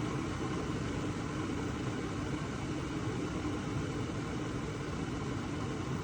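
Electric gooseneck kettle heating water: a steady, even low hiss with no clicks or breaks.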